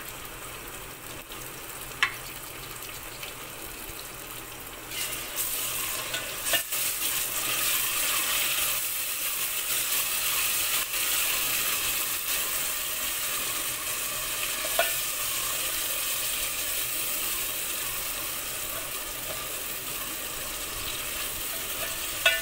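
Chopped tomatoes and green chillies sizzling in hot oil with fried onions in a metal pot while a spatula stirs them. The sizzle grows louder about five seconds in, and the spatula makes a few sharp clicks against the pot.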